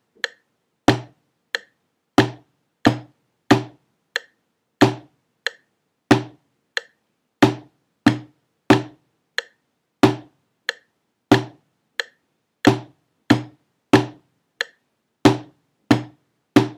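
Wooden drumsticks striking a rubber snare practice pad in a slow, steady rhythm of single strokes, alternating hands, about one and a half strokes a second.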